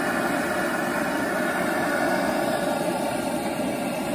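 Handheld propane torch burning with a steady hiss as its flame is worked up and down a freshly thrown clay pot to stiffen the wet wall.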